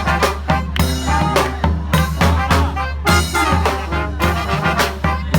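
Brass band playing live: horn lines over a steady drumbeat and a strong bass.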